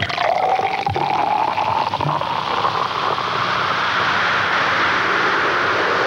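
Coca-Cola being poured into a glass: a pouring sound whose pitch rises slowly over the first couple of seconds, then a steady fizzing hiss of carbonation, with a couple of faint knocks about one and two seconds in.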